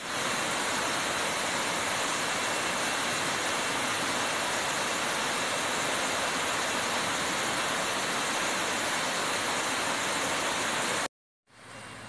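Pha Charoen Waterfall's tiered cascade, water rushing steadily over the rock steps, cutting off abruptly about eleven seconds in.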